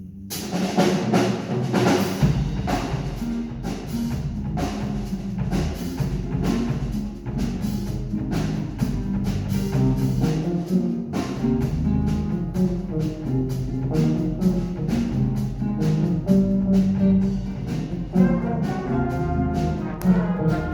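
Instrumental music with brass and a steady drum beat, starting suddenly.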